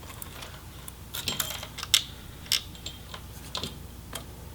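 Small sharp plastic clicks and taps, about six spread unevenly, as the flip-up retainers of ribbon-cable connectors on an MSI GT72 laptop motherboard are opened and the ribbons pulled out.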